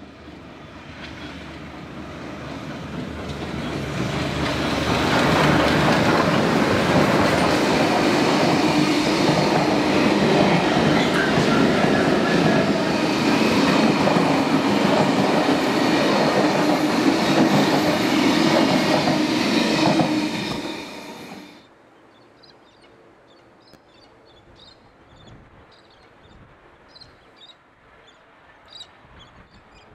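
Steam train running through a station at close range: the sound of AD60 Garratt 6029 and its carriages builds over the first few seconds, then the wheels roll past loudly and steadily until it cuts off suddenly about 21 seconds in. After that, faint rural ambience with short bird calls.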